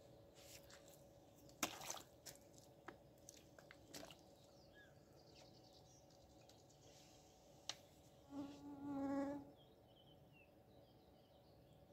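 A flying insect buzzing close to the microphone for about a second, two-thirds of the way in, after a few sharp clicks in the first four seconds.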